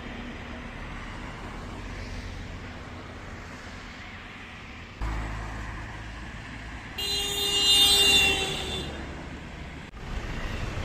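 Street traffic rumbling steadily, with a vehicle horn honking for about two seconds near the middle of the stretch.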